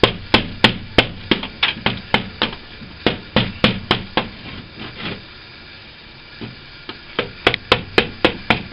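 Hammer blows chipping out old, hard window putty from a wooden sash: sharp strikes about three a second. They stop for about two seconds, then resume in a quicker run near the end.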